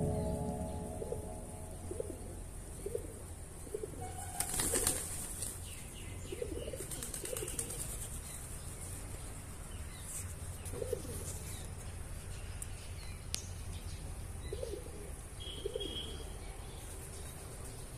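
A flock of pigeons feeding, cooing in short low calls at irregular intervals, with a burst of wing flapping about four and a half seconds in.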